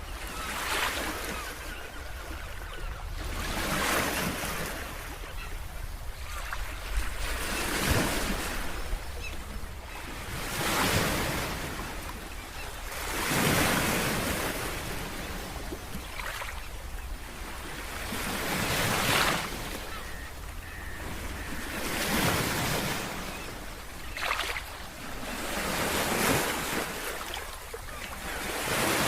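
Sea waves washing onto a shore, swelling and falling about every three seconds, with wind rumbling on the microphone.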